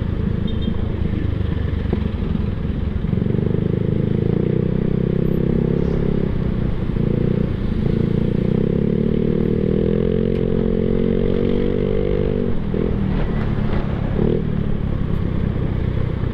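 Yamaha Mio Sporty scooter's single-cylinder four-stroke engine running through an aftermarket Apido exhaust pipe, holding a steady pitch for several seconds, creeping up in pitch, then dropping off about three-quarters of the way through, over a constant rumble.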